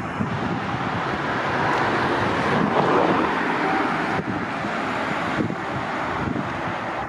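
Vehicles driving along a city street: a steady rush of engine and tyre noise with wind buffeting the microphone, swelling about three seconds in and easing off after.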